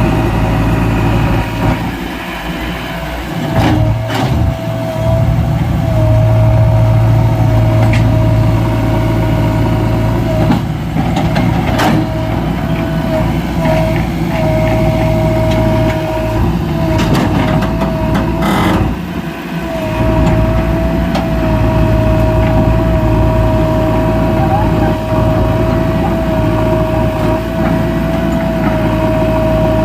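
JCB 3DX backhoe loader's diesel engine working steadily under load, with a steady high whine and a few sharp clanks as the bucket works, while loading mud into tipper trucks.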